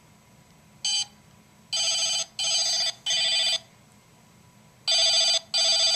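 Pink toy princess phone playing electronic ringing tones: a short beep about a second in, then three ring bursts in a row, and two more near the end.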